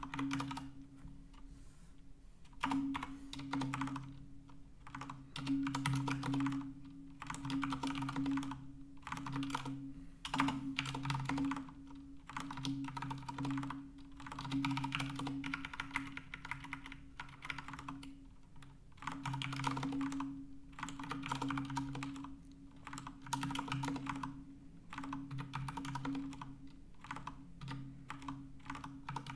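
Typing on a computer keyboard: runs of rapid key clicks broken by short pauses.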